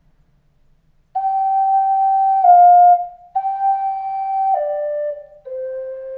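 Flute playing a slow melody of held notes, coming in about a second in and stepping mostly downward in pitch.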